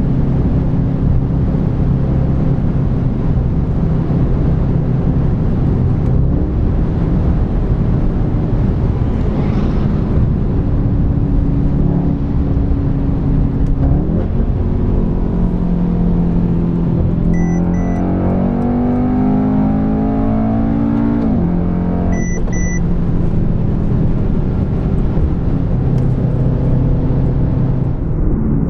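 Car engine and road noise heard from inside the cabin at motorway speed, running steadily, then pulling hard with the engine pitch rising for several seconds before dropping back around two-thirds of the way in. A short double beep sounds twice during the pull.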